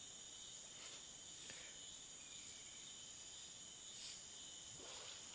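Faint, steady chorus of insects: a continuous high-pitched drone.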